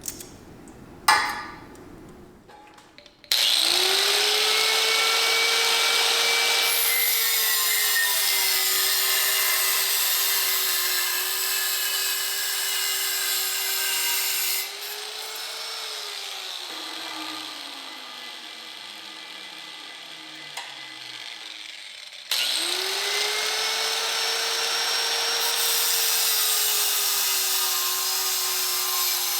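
A high-speed rotary tool with a cutoff wheel spins up with a rising whine and grinds through a steel reciprocating-saw blade with a loud hiss. Past halfway it winds down with a falling pitch and stops. It then starts up again and keeps cutting.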